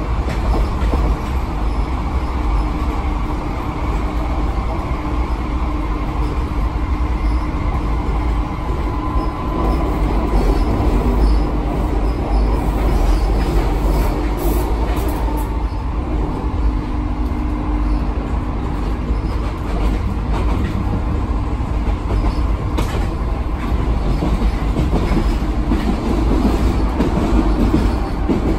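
MF77 metro train heard from inside the car while running: the steady rumble of steel wheels on the rails under the traction motors' hum. The hum changes pitch a little past halfway as the speed changes.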